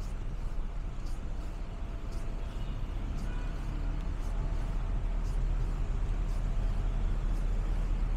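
Road traffic: the engines of lorries and cars idling in a queue make a steady low rumble, which grows louder toward the end.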